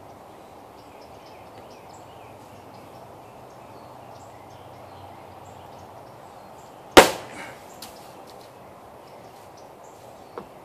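A large tool-steel chopper knife striking a plastic laundry-soap bottle once, about seven seconds in: a single sharp chop that dies away quickly.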